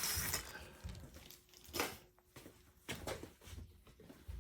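Cardboard model kit boxes being handled and set down: a brushing slide at the start, then a sharp knock a little under two seconds in and a few smaller knocks and rustles.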